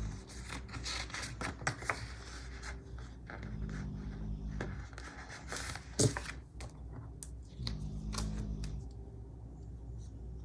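Paper and sticker sheets being handled on a desk: rustling, scraping and light taps, with one sharp click about six seconds in.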